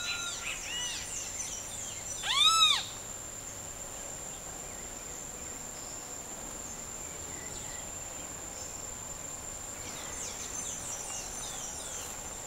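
Outdoor evening chorus: birds calling over a steady, high-pitched insect shrill. One louder rising-and-falling call stands out about two seconds in, with fainter chirps at the start and near the end.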